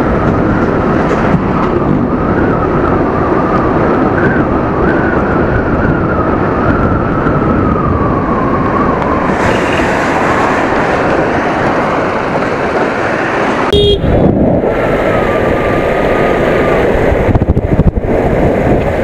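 Aprilia SXR 160 scooter under way, its single-cylinder 160 cc engine running beneath loud, steady wind and road noise on the on-board microphone, with a thin wavering high tone through the first half. The sound breaks off abruptly about 14 seconds in and carries on the same way.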